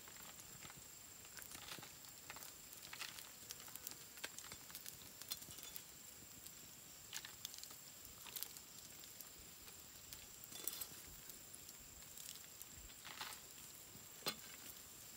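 Faint crackle and sizzle of a wood campfire with skewered frogs grilling over the embers, with scattered light clicks and scrapes from a machete working on a frog.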